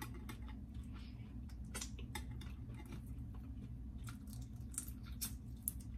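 Blue crab shell being cracked and pulled apart by hand to get the meat out: irregular sharp clicks and crackles of shell with wet squishing, over a steady low hum.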